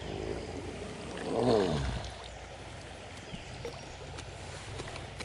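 Creek water running steadily, with one brief louder swish that falls in pitch about a second and a half in.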